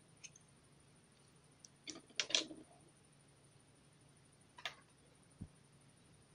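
Putty slime being squeezed and mixed by hand, giving a few sticky clicks and pops: a faint one early, a cluster of louder pops about two seconds in, another pop later, then a short dull thud.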